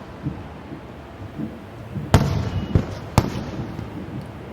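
Fireworks shells bursting: three sharp bangs a little over two seconds in, within about a second of each other, the first the loudest, each trailing off in a rumbling echo. Fainter, more distant thuds come earlier.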